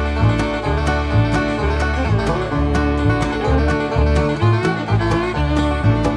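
Bluegrass-style background music with banjo and guitar over a steady bass beat.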